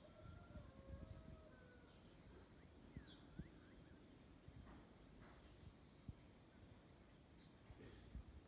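Faint countryside ambience: a steady high insect drone, with birds giving many short, quick chirps that fall in pitch every half second or so. Under it there is a low rumble of wind on the microphone.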